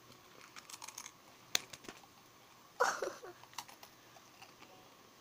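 Crunching of Whoppers malted milk balls and Takis being chewed: a scatter of small sharp cracks, one louder crack about one and a half seconds in. A brief voiced sound, like a short hum, comes about three seconds in.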